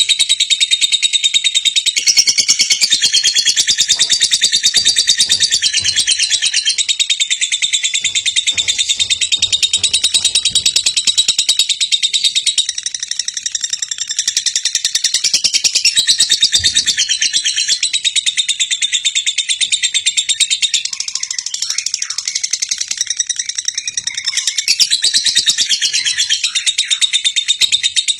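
Lovebird song: a long, unbroken run of very fast, high chirps.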